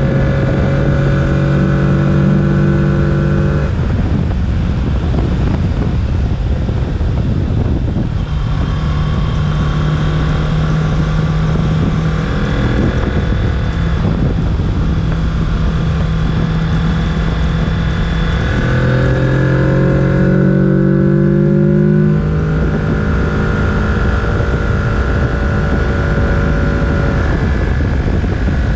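Kawasaki Z650 parallel-twin engine running under way, its note holding steady and then stepping to a new pitch every few seconds as throttle and gears change. About two-thirds of the way through it climbs for a few seconds, then drops suddenly. Wind rushes over the microphone throughout.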